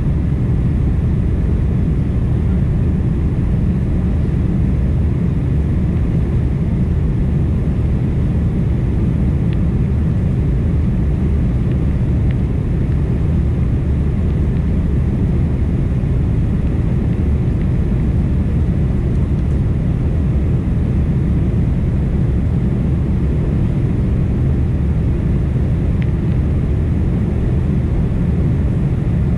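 Steady low roar of jet engines and rushing air heard inside an airliner cabin during the climb after take-off.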